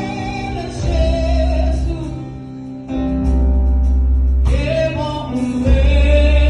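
Gospel choir of women and men singing live with a band, deep bass guitar notes under the voices. The music thins briefly a little before halfway, then comes back fuller and louder.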